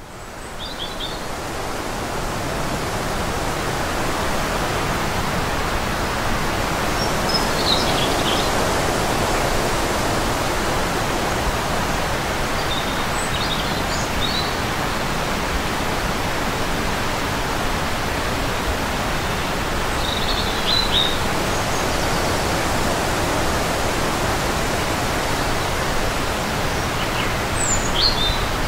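A steady, even rushing noise that fades in over the first few seconds, with a faint high chirp every six or seven seconds.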